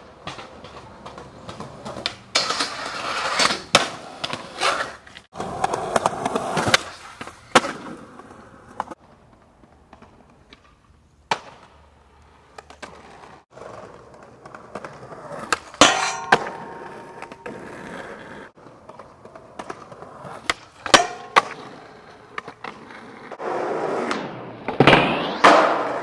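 Skateboard wheels rolling on concrete, broken by sharp cracks of the board's tail popping and landing, over several separate tricks.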